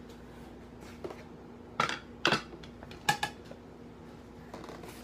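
Dishes being handled: a few sharp clacks and knocks, two close together about two seconds in and two more a second later, over a faint steady hum.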